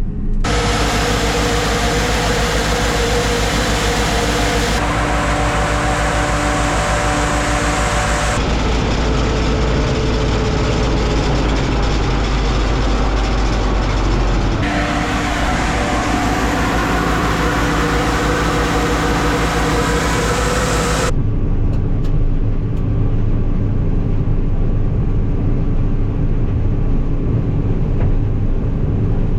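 Loaded grain truck driving, with a steady engine and road rumble. The sound changes abruptly several times, with the hiss dropping away after about 21 seconds.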